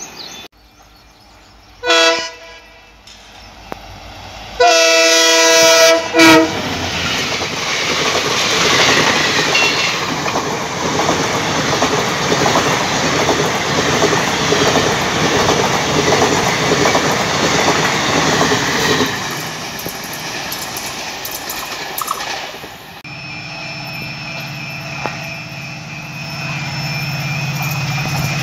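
Train horn sounding, a short blast and then a longer loud blast, followed by a passenger train's coaches rushing past close by with the clickety-clack of wheels over the rails for about a dozen seconds. Later a quieter, low, steady drone of a diesel locomotive as it approaches.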